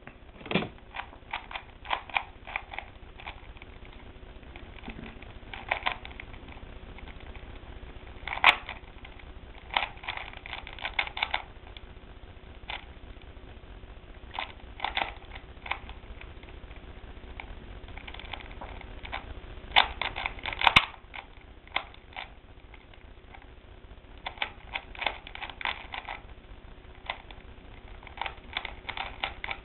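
Rubik's cube being turned by hand in a timed Fridrich-method solve: quick runs of plastic clicking as the layers turn, broken by short pauses of a second or two.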